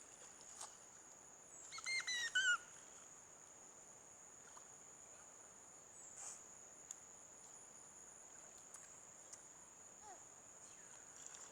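Steady, high-pitched insect chorus, crickets or similar, carrying on throughout. About two seconds in there is a brief, louder high-pitched call of a few notes, each falling in pitch.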